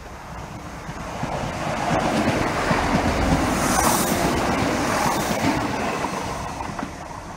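Great Western Railway Turbo diesel multiple unit running along the platform close by: the rumble of its wheels and engines builds up over the first two seconds, peaks with a brief hiss about four seconds in, and fades away near the end.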